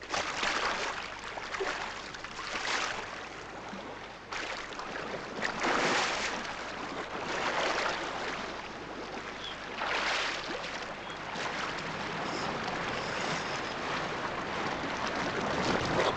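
Sea waves washing in and drawing back, the surf swelling every two to four seconds.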